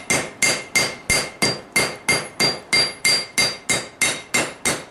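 Hand hammer striking a hot, forge-welded layered steel billet on an anvil. The blows are steady, about three a second, each with a short metallic ring from the anvil.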